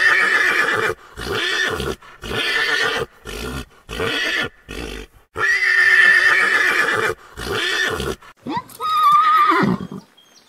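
Horse whinnying twice, each time a long high call breaking into a run of shorter, stuttering pulses. Near the end comes a second, higher whinny that wavers in pitch.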